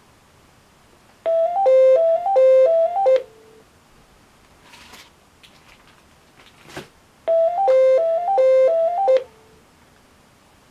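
AT&T DECT 6.0 base telephone ringing with an electronic ringtone: two rings about six seconds apart. Each ring lasts about two seconds and is a short three-note figure played three times over.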